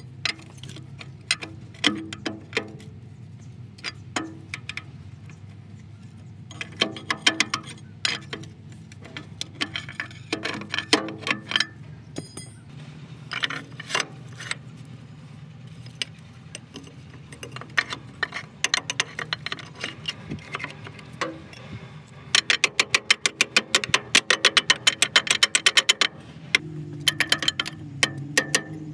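Steel hand tools knocking, clinking and scraping against a loader's rusty brake caliper as the brake pads are pried and worked loose. About two-thirds of the way through comes a fast, even run of metallic clicks lasting a few seconds, all over a steady low hum.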